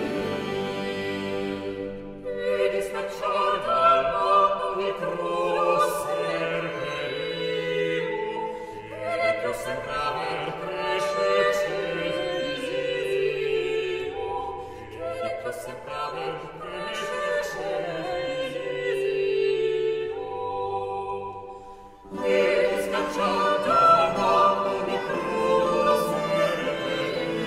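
Classical music with operatic singing over orchestral accompaniment. It dips briefly a little past twenty seconds in, then comes back louder.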